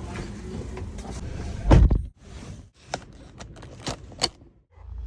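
Baleno car's controls and fittings being worked: a loud thump a little under two seconds in, then three or so sharp clicks spaced about a second apart.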